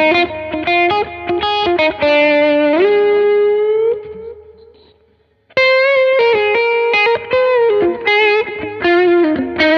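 Overdriven electric guitar lead from a Gibson Les Paul through a Vemuram Jan Ray overdrive into channel 1 of a Suhr PT100 amp, played through a 2x12 cabinet loaded with Celestion A Type speakers; the tone is warm and yet clear and articulate. A quick run of notes leads to a bend up into a long held note that fades out about four seconds in, then a new phrase of sustained, singing notes begins.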